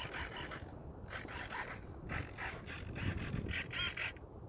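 Shoes scuffing on gritty asphalt, a run of short rasping steps a few tenths of a second apart.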